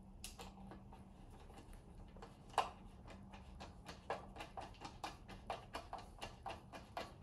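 A screw being driven through the plastic wall mount, giving short clicks and knocks, a few at first, then a steady clicking of about three a second from about four seconds in.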